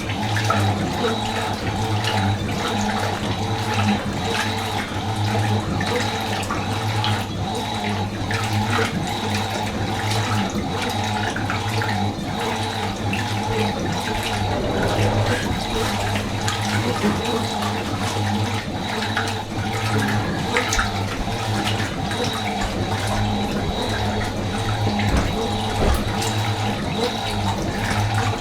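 Fisher & Paykel MW512 washing machine running, with water rushing and splashing in the tub over a steady hum.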